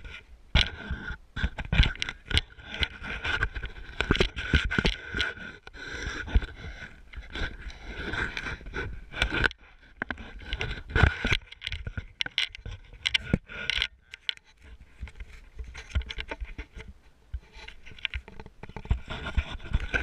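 Handling noise from a pole-mounted action camera being carried: irregular scrapes, rubs and sharp knocks from the pole and housing as it is walked and moved about.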